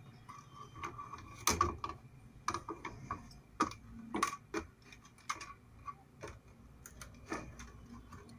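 Hands handling the circuit board and wiring inside an opened induction cooktop: scattered light clicks and taps at irregular intervals.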